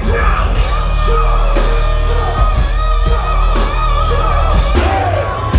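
Loud rock music with electric guitar over heavy bass and drums, a held, wavering lead note sounding through most of it.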